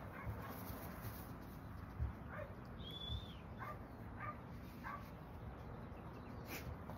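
Belgian Malinois whining in short, high yips, about six times.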